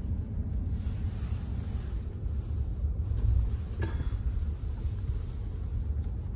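Steady low rumble of road and engine noise inside a car's cabin as it drives slowly, with a faint hiss over it.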